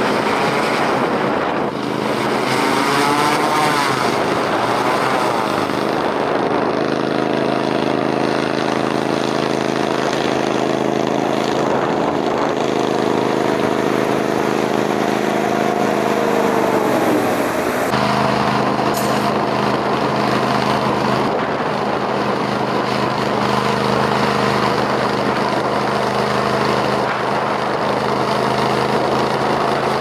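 Christy 7186 FC hovercraft running, its engines and ducted air propeller going as it comes up out of the water and across sand. The pitch sweeps early on as it passes, holds steady, then falls about 17 seconds in. The sound changes suddenly just after, to a steadier, lower engine note.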